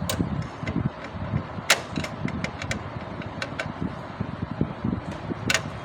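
Irregular sharp clicks and clatter over a low rumble from an HP LaserJet 3005/3035-series laser printer.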